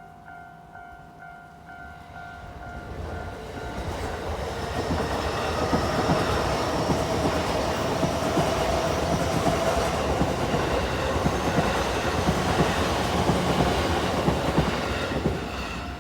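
Kawagoe Line commuter train passing close by, its wheels clattering on the rails. It builds over the first few seconds, stays loud for about ten seconds and fades near the end. A level-crossing warning bell rings steadily at the start and is drowned out while the train goes by.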